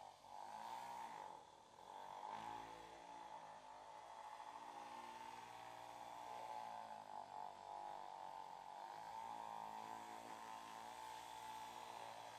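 Faint steady electric buzzing from a small motor, its lower hum wavering up and down in pitch.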